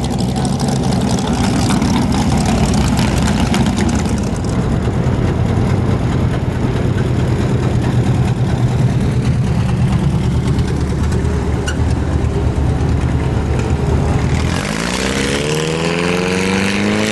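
Hot rod and classic car engines running at low speed as the cars roll slowly past, a steady deep rumble. Near the end one engine's pitch rises as it picks up speed.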